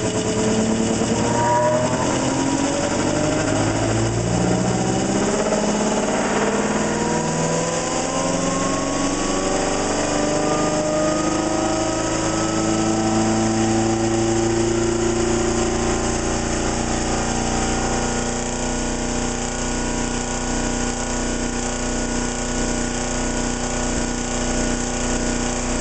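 ReGen-X generator prototype and its prime-mover motor spinning up: a whine that rises steadily in pitch for the first twelve seconds or so as the rotor climbs from about 500 to about 1800 RPM, then levels off and runs steady. It is speeding up above the generator's critical minimum frequency, which the builders present as regenerative acceleration rather than the usual slowing under load.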